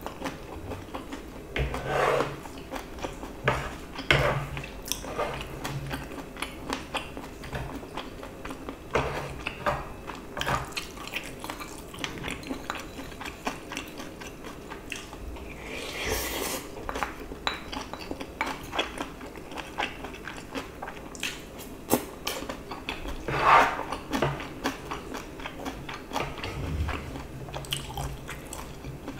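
Close-miked eating: a spoon clinks and scrapes against a small bowl and a pan, with chewing of stir-fried octopus, pork belly and noodles. A few louder smeared sounds come about 2, 4, 16 and 23 seconds in.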